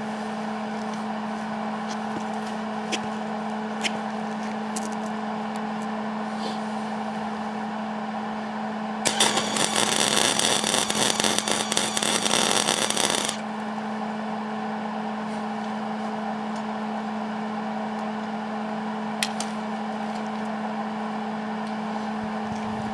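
Electric arc welding: the arc crackles and sputters for about four seconds, starting about nine seconds in, then stops. A steady hum runs underneath throughout, with a few light ticks.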